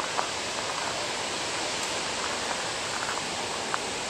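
Steady rushing roar of the Upper Falls of the Genesee River, an even wash of falling water with a couple of faint short clicks on top.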